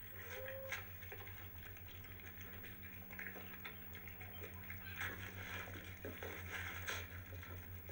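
Dingo mother and pups feeding on meat: scattered crackling and rustling of chewing and movement over a steady low hum, with a brief high squeak about half a second in.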